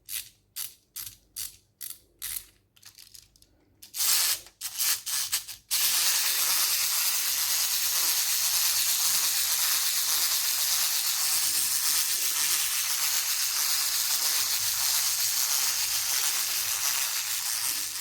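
Quick ratcheting mechanical clicks for about six seconds, followed by a steady loud hiss that holds for the rest.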